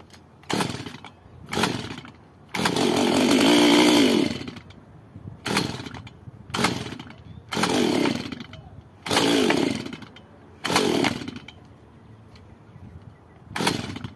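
Stihl MS 192T top-handle chainsaw's two-stroke engine revved in about nine short throttle bursts, the longest lasting about two seconds. Each time the revs fall away instead of holding: the engine runs at low speed but bogs and dies at full throttle.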